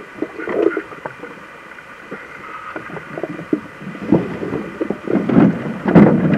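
Irregular knocks, thumps and splashing of water in and against a canoe, growing busier and louder over the last two seconds.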